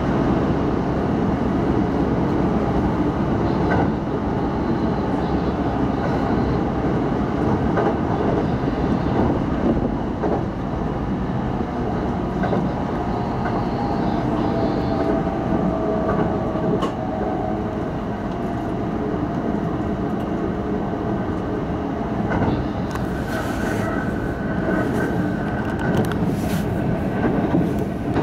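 Keihan limited express electric train running at speed, heard from inside the front of the train: a steady rumble with scattered sharp clicks of the wheels over rail joints and points.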